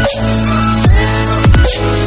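Electronic dance music with heavy kick drums whose pitch drops sharply on each hit, over sustained synth chords.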